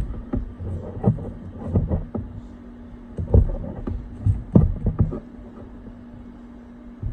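Handling noise as double-sided tape is applied to an iPad mini's frame: irregular soft knocks, taps and rubbing, loudest about three and a half and about four and a half seconds in, over a steady low hum.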